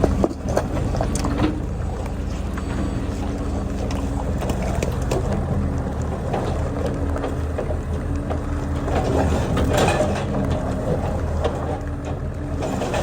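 Engine of a small work machine running steadily under load, its pitch shifting a little, with scattered knocks and clatter throughout and a busier stretch of clatter about ten seconds in.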